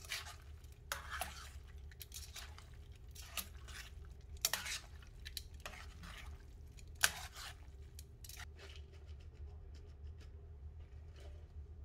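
Metal tongs clinking and scraping against a stainless-steel skillet as they toss bucatini in carbonara sauce. The clinks are irregular, loudest about four and a half and seven seconds in, and thin out near the end.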